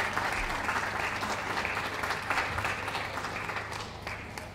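Ringside spectators applauding with a steady patter of many hands clapping, which dies away near the end.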